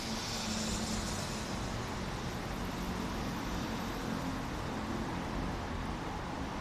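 Siemens Desiro electric multiple unit standing at the platform, its onboard equipment giving a steady low hum, with a brief hiss near the start.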